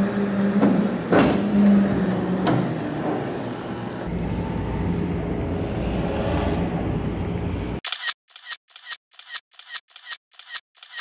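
Metal clanks and knocks with a short ring, from the steel door handles and locking bars of a shipping container being worked, over a steady hum. Later, about ten sharp, evenly spaced clicks, roughly three a second, with near silence between them.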